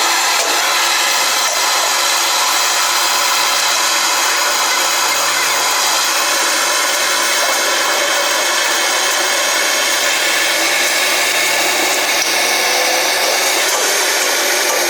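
A machine running steadily without a break: a loud hiss with several fixed whining tones.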